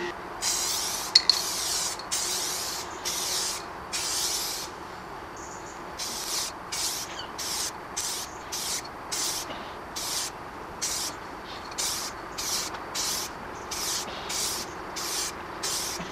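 Aerosol spray can of silver car paint hissing in repeated bursts as the top coat is sprayed onto a car body panel: about five longer sprays at first, then short quick bursts at roughly two a second. Two sharp clicks come about a second in.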